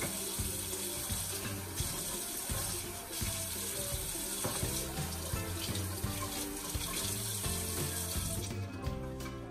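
Water running steadily from a tap, shutting off near the end, with music playing underneath.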